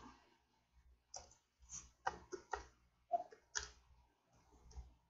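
Faint computer keyboard keystrokes, about eight irregular clicks as a word is typed.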